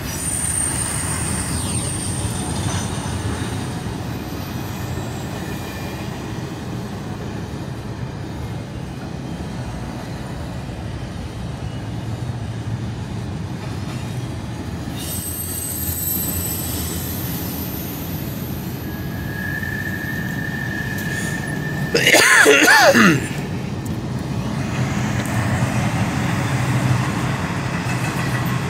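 Double-stack intermodal freight train rolling past: a steady rumble of wheels on rail, with a thin high-pitched wheel squeal twice. About three-quarters through comes a louder sound of about a second that falls in pitch.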